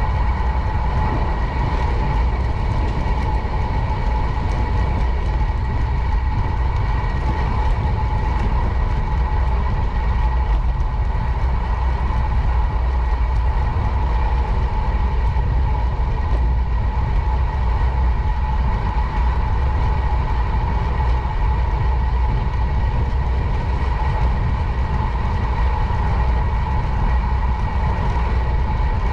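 Steady loud rumble with a constant hum, the noise of riding a bicycle along a paved path: wind and tyre noise picked up by a bike-mounted camera.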